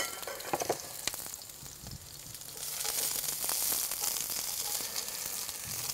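Onions sizzling in hot grapeseed oil in a pan on a kamado grill as they are tipped in and stirred. A few light clicks come in the first second, and the sizzle swells louder about two and a half seconds in.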